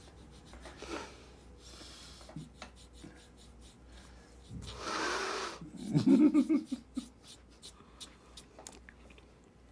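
A person's breathing with small rubbing and clicking sounds: a short breath about two seconds in, a longer breath out about five seconds in, then a brief low sound from the voice, the loudest moment.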